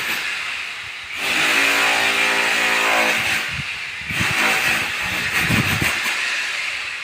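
A car passing on the street: engine hum and tyre noise swell about a second in, the engine's pitch sinking slightly as it goes by, then fade away.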